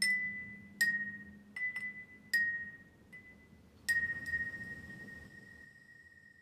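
Water-filled wine glasses struck with a thin stick, about seven strikes each ringing a clear high tone at nearly the same pitch; the last strike, about four seconds in, is left to ring and fade slowly.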